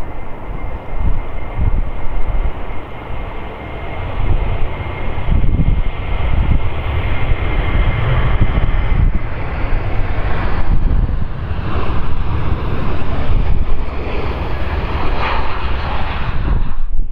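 Airbus A340-300's four CFM56-5C4 turbofan engines at taxi power: a steady jet rumble with a whine that grows louder through the middle as the airliner taxis past close by.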